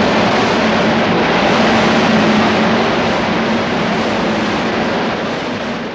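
A C62 steam locomotive and its passenger train rushing past at speed: a loud, steady rush of noise that builds as the engine arrives and eases near the end as the coaches go by.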